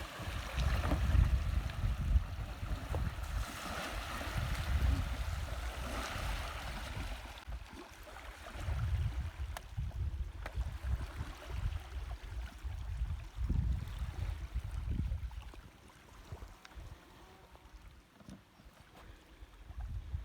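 Water splashing and sloshing around a small boat, strongest in the first several seconds, over gusty wind buffeting the microphone.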